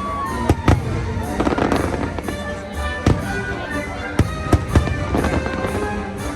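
Fireworks bursting in sharp bangs, several in quick succession about two-thirds of the way through, over a fireworks-show music soundtrack.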